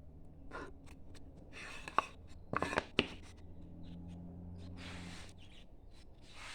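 Hand chisel paring wood in short scraping strokes, about four cuts, with a couple of sharp clicks, over a faint low hum.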